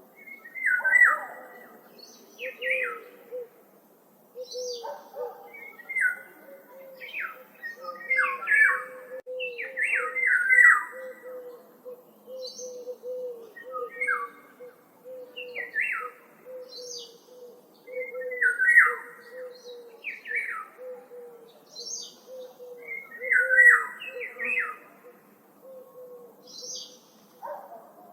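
Several wild songbirds chirping and calling in woodland, short clear notes and quick sweeping phrases overlapping from different birds. Underneath runs a steady string of lower repeated notes, a few each second, from about four seconds in until near the end.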